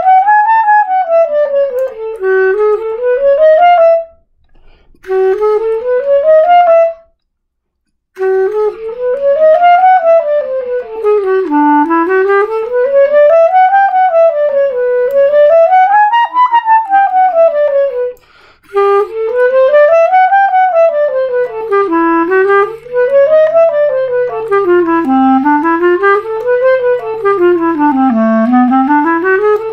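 Clarinet playing scales: runs of notes stepping evenly up and then back down, one after another. There are brief breaks a few seconds in and again about two-thirds of the way through.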